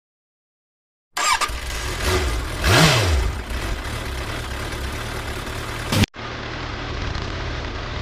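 Motorcycle engines idling in a group, with one quick throttle blip about three seconds in. The sound starts about a second in and drops out briefly for a moment near six seconds.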